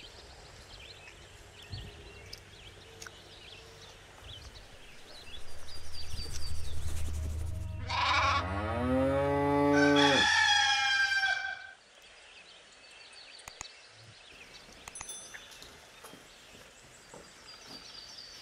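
Farm-animal calls used as a sound effect, lasting about six seconds: a low drawn-out call, then a call that falls in pitch, then a higher wavering call that cuts off suddenly.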